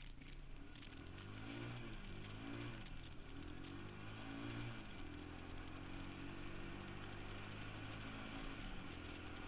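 Suzuki QuadRunner 160 ATV engine running, its pitch rising and falling a few times as the throttle is worked, then settling into a steady note about halfway through.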